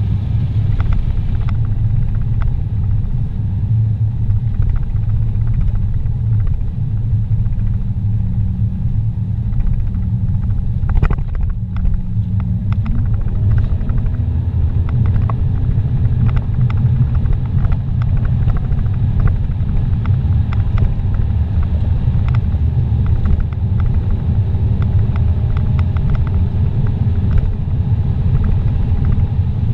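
Steady low rumble of a car's engine and tyres at highway speed, heard inside the cabin, with a faint engine note climbing slowly in pitch from about halfway through. A single brief knock partway through.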